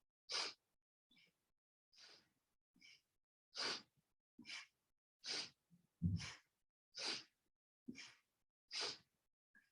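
A person's quick, sharp breaths, about eleven of them, in and out at a steady pace of a little more than one a second, keeping time with a seated side-to-side twist.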